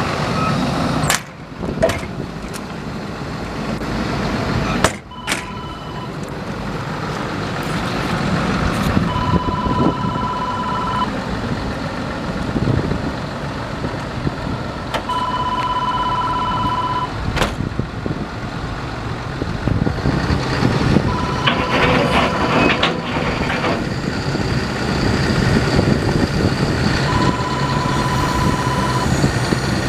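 Case CX300D excavator's diesel engine running steadily. A high electronic beep sounds for about two seconds at a time, three times, with a couple of shorter beeps in between.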